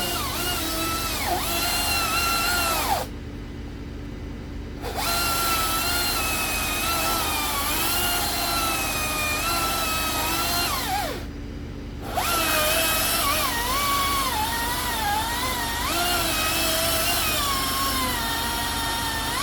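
Battery-powered chainsaw cutting through wood, its electric whine shifting in pitch as it loads up. It stops briefly twice, about three seconds in and again about eleven seconds in, winding down before the second stop, then starts up again.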